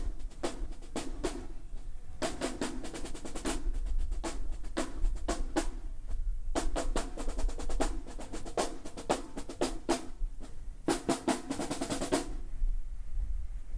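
Marching band drumline playing a cadence: groups of rapid snare strikes and rolls over bass drum, with short breaks between phrases and a pause near the end.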